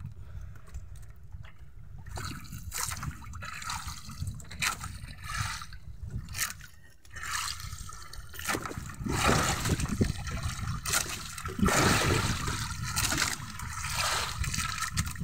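Seawater splashing and trickling off a wet fishing net as it is hauled by hand over the side into a small wooden boat, over a steady low rumble of the sea. The splashing gets heavier and more frequent about halfway through.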